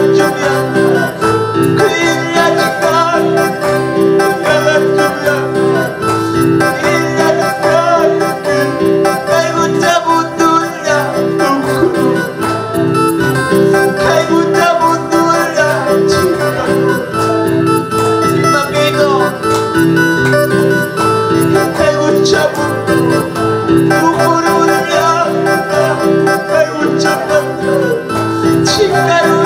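A man singing a worship song in Quechua into a microphone, accompanying himself on an electronic keyboard with a plucked, guitar-like sound.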